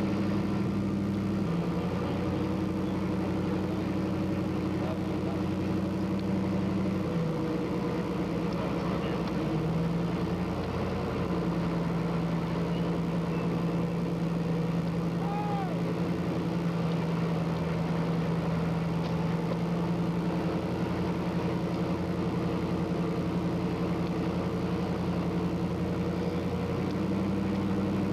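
Military vehicle's engine running steadily while driving over desert ground, heard from on board. Its pitch steps down twice early on, climbs again after about ten seconds, and rises once more near the end as the vehicle changes speed.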